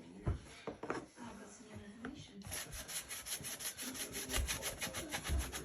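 A few light knocks, then fast, even back-and-forth scrubbing strokes, about eight a second, as a motorcycle's rear-wheel plastic cover is cleaned.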